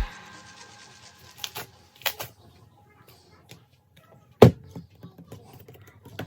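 Background music cuts off at the start, leaving faint handling sounds: scattered small clicks and taps, with one sharper click about four and a half seconds in.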